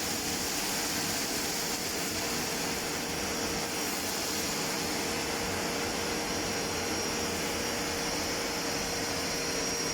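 Kärcher WD 4 S 1000 W wet/dry vacuum cleaner running steadily, a constant rushing hiss with a thin high whine.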